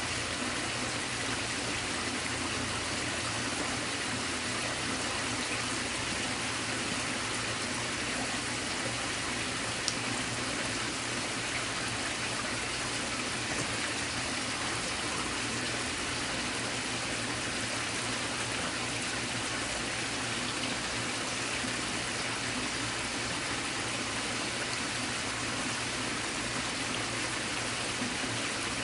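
A creek running: a steady, even rush of water, with a single brief click about ten seconds in.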